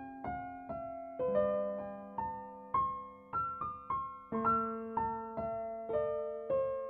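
Background piano music: a slow melody of single struck notes, about two a second, over held lower notes.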